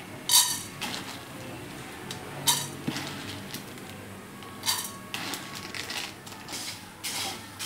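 Three short metallic clatters about two seconds apart in a non-stick frying pan as roasted split chickpeas are tipped in and spread.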